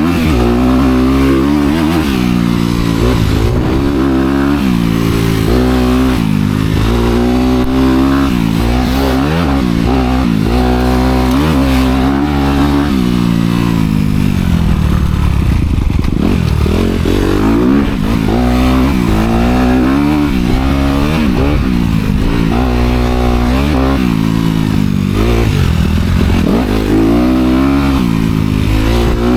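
Honda CRF250R dirtbike's single-cylinder four-stroke engine through its dual exhaust, being ridden hard: the revs climb and drop back over and over as the rider accelerates and shifts, sinking lower for a few seconds around the middle before picking up again.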